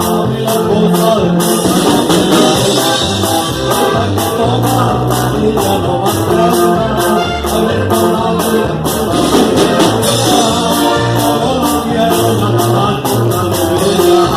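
Latin American band music with brass and guitar over a steady beat.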